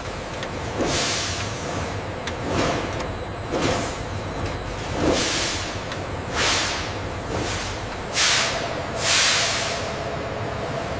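Factory machinery running with a steady low rumble and hum. About once a second it gives a short hiss that sweeps down in pitch, like air let out of a pneumatic valve.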